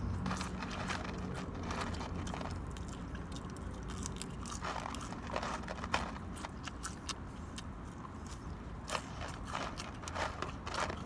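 A person chewing crunchy fried food close to the microphone, with irregular crunches and wet mouth clicks, over a low steady hum.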